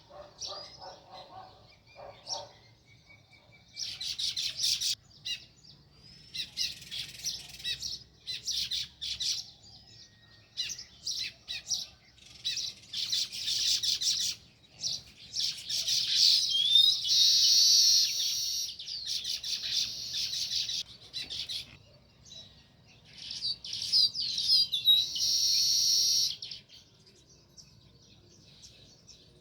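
House sparrows chirping in rapid bursts of high, clustered chirps, getting busier from about four seconds in and loudest in two long runs in the middle and later part. A few lower-pitched notes sound in the first couple of seconds, and the chirping dies down near the end.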